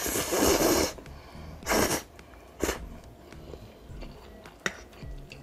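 A person slurping strands of cheesy pancit canton noodles off a fork, with one long loud slurp at the start and two shorter ones within the next two seconds. After that come quieter chewing and small clicks.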